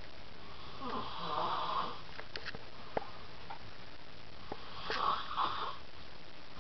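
A sleeping person snoring: two rasping snores about four seconds apart, with a few faint clicks between them.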